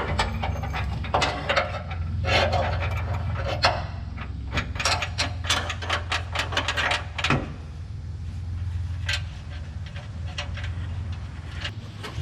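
Workshop handling noise: a run of knocks and clicks, dense for the first seven seconds or so and sparser after, over a steady low hum.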